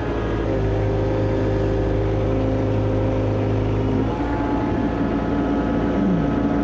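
John Deere excavator's diesel engine running steadily while the hydraulics are worked, with a set of held tones that shift about four seconds in and a short falling tone near the end.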